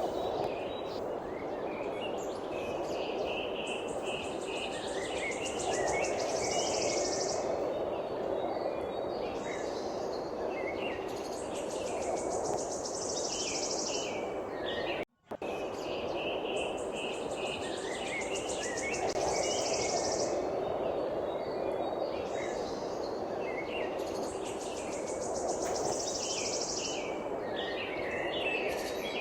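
Small birds chirping and twittering, with bursts of rapid high buzzing trills over a steady background noise. The sound cuts out for a moment about halfway through, and the same passage then repeats.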